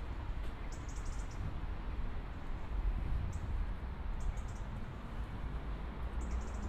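Small birds chirping in short clusters of rapid, high notes every second or two, over a steady low rumble.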